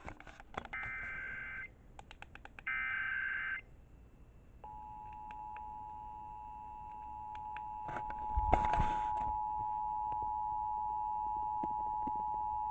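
Emergency Alert System tones on the radio: two roughly one-second bursts of SAME header data, then the steady two-tone attention signal (853 and 960 Hz) starting about four and a half seconds in and held for about eight seconds, opening a required monthly test. A short noisy thump sounds over the tone about eight seconds in.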